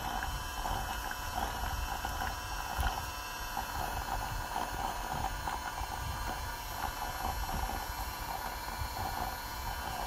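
Daiso toy mini washing machine's small motor running steadily, spinning and churning a soju-and-beer mix in its plastic tub to blend somaek.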